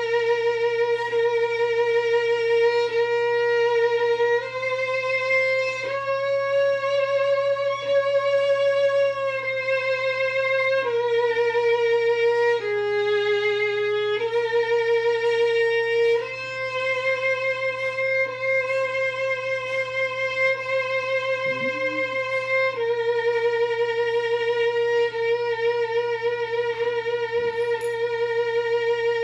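Solo violin playing a slow melody of long held notes with vibrato, moving to a new pitch every two to four seconds.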